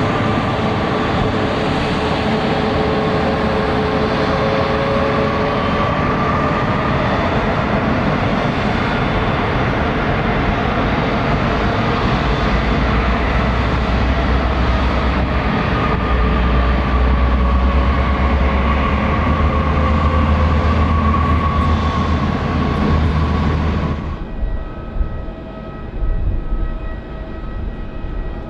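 Jet airliner engines close by: a loud, steady rush of noise with whining tones that slowly drift in pitch and a deep rumble that builds in the second half. About 24 seconds in it cuts off abruptly to a quieter hum with steady whine tones.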